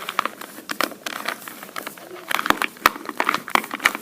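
A plastic 2x2 Rubik's cube being twisted by hand: a quick, irregular run of clicks and rattles as its layers turn.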